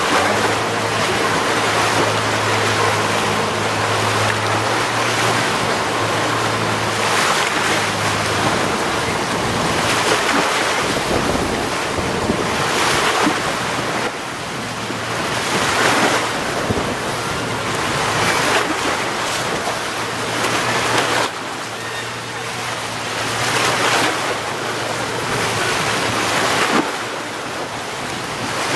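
Wind buffeting the microphone over small waves washing against the shore, the water surging every two to three seconds, with a low steady hum underneath for much of the time.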